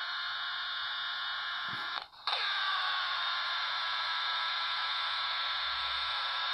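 Steady static hiss from a small RCA pocket radio set beside a running switching power supply: the radio picks up the supply's switching oscillation as interference, a sign the circuit is oscillating. The hiss cuts out briefly about two seconds in, then comes back a little stronger.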